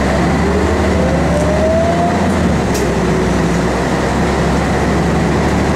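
Inside a 1996 Scania L113CRB bus under way: its 11-litre six-cylinder diesel drones steadily, and a whine rises in pitch over the first two seconds or so.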